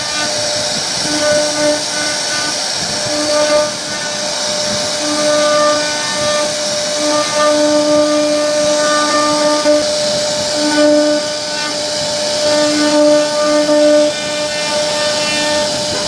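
CNC router spindle running and cutting wood, a steady hiss with a humming whine that keeps starting and stopping as the carving head moves from stroke to stroke.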